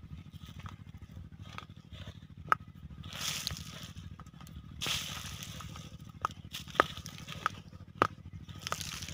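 Handfuls of urea fertilizer granules broadcast by hand, landing as short scattering bursts on dry soil and young plants about three times, with a few sharp ticks. Under it runs the steady low throb of an idling engine.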